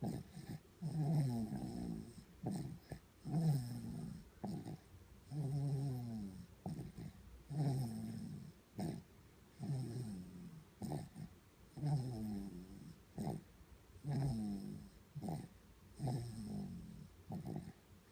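A sleeping baby snoring in a steady rhythm. Each snore is pitched, lasts about a second and slides down in pitch, and they come about one every two seconds, with short clicks between them.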